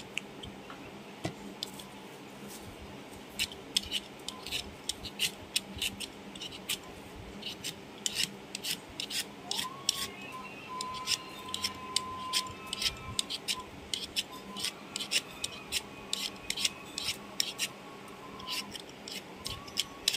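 Kitchen knife peeling the hard rind off a squash: quick, irregular scraping and cutting strokes, a few each second.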